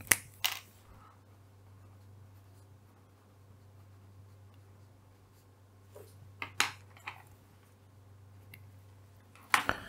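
Coloured pencil scratching faintly on paper as a word is written by hand, with a few sharp taps and clicks of the pencil against paper and desk. A low steady hum runs underneath.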